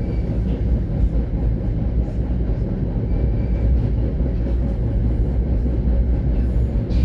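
Steady low rumble of a moving NJ Transit Comet IIM commuter coach, heard from inside the car as the train pulls out of the station.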